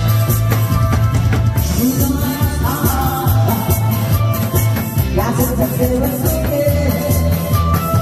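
A song with a steady drum beat and a singing voice.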